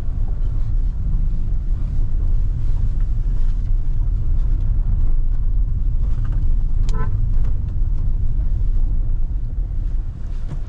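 Steady low rumble of engine and road noise inside a moving Kia Seltos, with a short car-horn toot about seven seconds in.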